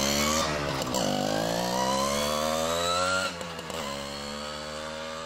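Tomos APN 6S moped's small two-stroke single-cylinder engine accelerating away: its pitch climbs, drops sharply at gear changes about half a second in and just after three seconds, then the engine runs on fainter as the moped rides off.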